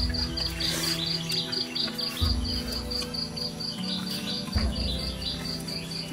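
Insects chirping in an even, steady rhythm of about four chirps a second, over soft background music of held low notes with a low thump every couple of seconds.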